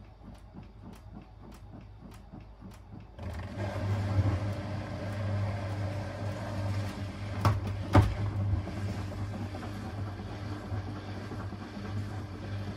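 AEG 9000 Series front-loading washing machine: the drum turns with light knocks about three times a second, then about three seconds in the motor speeds up into a spin with a steady hum. A little past the middle the drum bangs twice, loudly, in quick succession.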